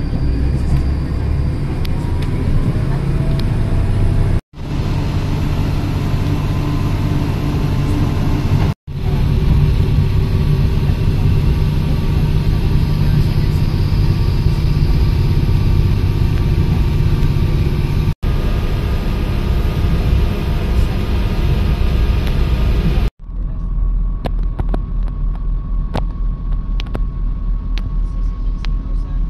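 Steady low rumble of a passenger train running, heard from inside the carriage, broken by a few brief dropouts. Near the end it turns quieter and duller, with sharp clicks.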